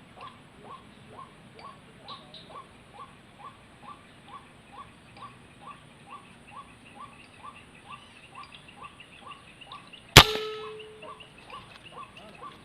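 A single shot from a PCP air rifle, a sharp crack with a brief ring after it, about ten seconds in. It comes over a bird call repeated steadily, a little over twice a second.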